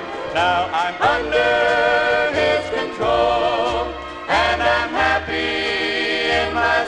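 Gospel song sung with instrumental accompaniment, a steady bass line under the voices.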